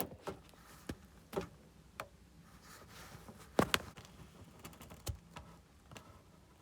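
Small metal parts and tools being handled: scattered light clicks and taps, the loudest about three and a half seconds in.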